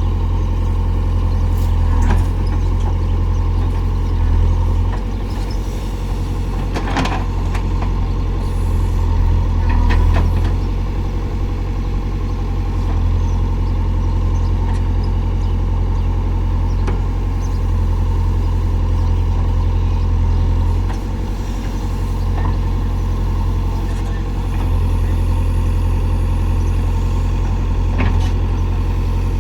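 JCB backhoe loader's diesel engine running steadily with a deep hum, broken by a few sharp knocks.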